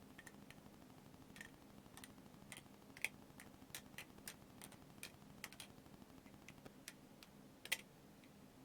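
OSP Matrix balisong being flipped: irregular light clicks as the handles swing around and strike the blade's tang, with a louder clack about three seconds in and the loudest one near the end.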